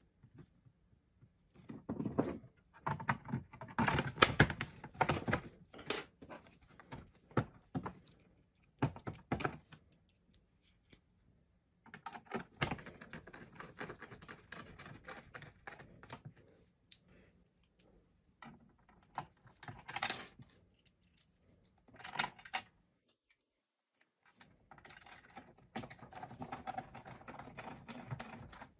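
Handling noise from reassembling an APC lead-acid battery cartridge: the red battery cables are pressed into place and the black plastic cover is fitted over the cells, giving irregular clusters of plastic clicks, taps and knocks.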